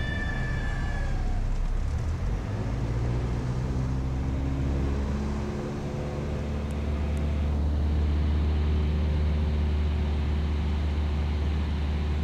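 Stall warning horn sounding one steady high tone that cuts off about a second in, as a power-off stall breaks. Under it the light single-engine airplane's piston engine and propeller drone steadily in the cockpit, then rise in pitch and grow louder as power is added for the stall recovery.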